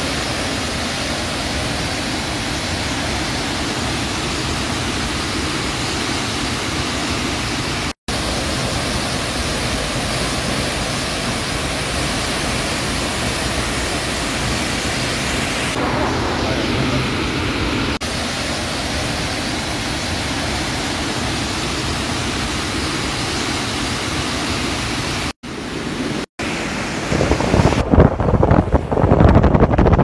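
A large waterfall pouring into a pool: a steady, even rush of falling water, broken briefly by edit cuts. Near the end it changes to uneven wind buffeting on the microphone from a moving vehicle.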